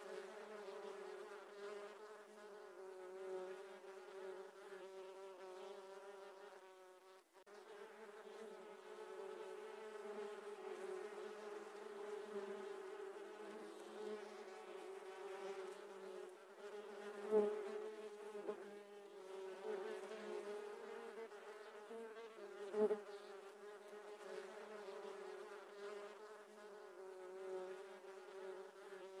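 Swarm of giant honey bees (Apis dorsata) buzzing around their exposed comb: a steady, even drone, with a few thumps, the sharpest about 17 and 23 seconds in.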